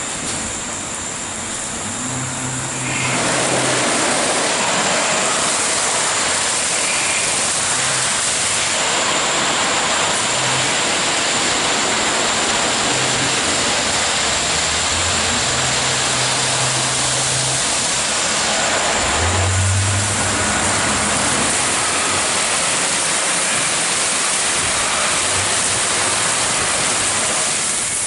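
Spinning nylon brushes of a Christ Genius Vitesse gantry car wash scrubbing a wet car during the brush wash: a steady, loud swishing rush that rises about three seconds in and eases near the end, with a low motor hum that comes and goes.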